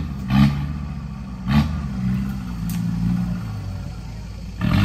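Off-road Jeep's engine revving in short surges about half a second and a second and a half in, then running steadily at lower revs, and picking up again near the end.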